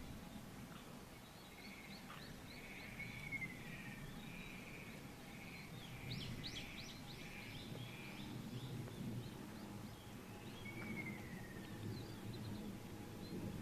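Several wild birds calling: a run of repeated short notes, two drawn-out falling calls about three and eleven seconds in, and a burst of quick high chirps around six seconds in, over a steady low outdoor rumble.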